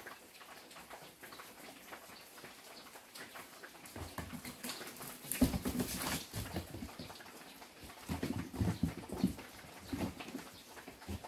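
Kittens' paws thumping and scrabbling on cardboard boxes as they jump and chase, in two flurries of soft knocks, about halfway through and again near the end.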